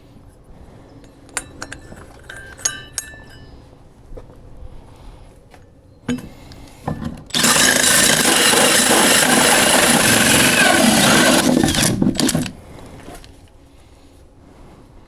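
A few light metallic clinks, then a power tool cutting steadily for about five seconds before stopping.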